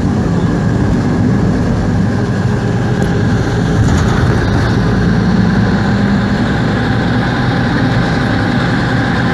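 Skoda 706RT six-cylinder diesel engine of a 1977 Jelcz 272MEX bus running steadily as the bus drives, heard from inside the cabin.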